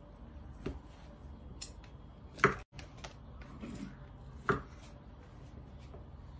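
Kitchen knife slicing through peeled potatoes and knocking on a wooden cutting board: three separate knocks about two seconds apart, the middle one loudest.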